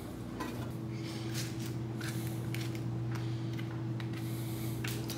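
Air fryer running with a steady motor-and-fan hum, and a second steady tone joining in about a second in. A few light clicks and knocks of handling sound over it.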